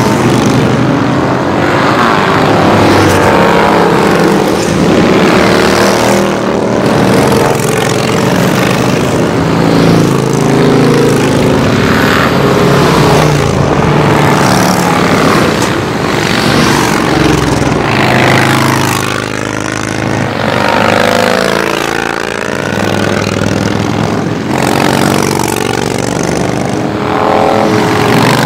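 A steady stream of motorcycles riding past, mostly V-twin cruiser and touring bikes, their engines running loudly without a break. The pitch rises and falls over and over as bikes rev and pass close by.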